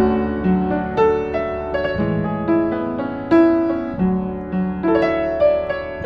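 A 1960s upright acoustic piano played in a slow, gentle melody over sustained bass notes, each note struck and then fading.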